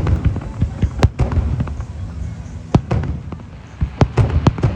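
Fireworks going off: a string of sharp bangs over a low rumble, several in quick succession near the end.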